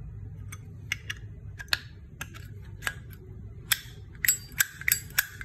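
Metal Zippo lighter being handled, its hinged lid clicking open and shut. Scattered light clicks come first; from about four seconds in there is a quick run of louder metallic clinks that ring on briefly.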